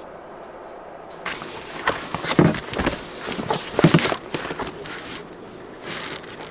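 Rustling and handling noise as a mat and board are moved about in a car's cargo area, with a couple of dull thumps, the loudest about two and a half and four seconds in.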